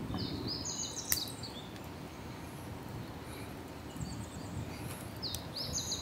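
Beer poured from a can into a glass, a low steady rush, while a small bird calls twice in a quick run of high chirps, about half a second in and again near the end. A sharp click sounds about a second in.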